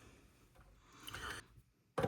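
Faint handling of wires and small tools in an amplifier chassis: a short scraping rustle about a second in, then a sharp click near the end.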